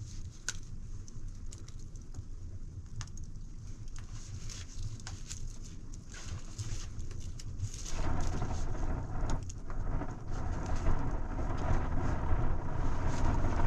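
Rain falling steadily, with scattered drops pattering and ticking close by over a low rumble; the rain noise grows louder about eight seconds in.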